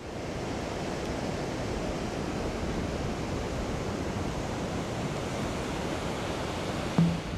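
Steady rushing noise of ocean surf washing onto a sandy beach, even and unbroken.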